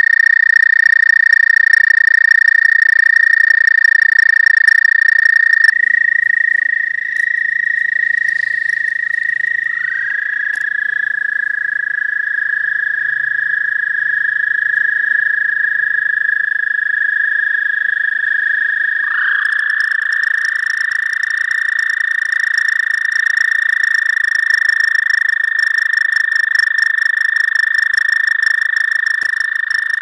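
Male American toads trilling: long, steady, high trills, each held for many seconds. One trill breaks off about six seconds in, a second toad's trill comes in underneath at about ten seconds, and a new trill starts at about nineteen seconds, so two toads overlap for most of the time.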